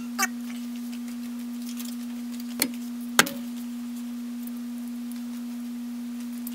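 A steady hum held at one pitch, with two light clicks about half a second apart midway through.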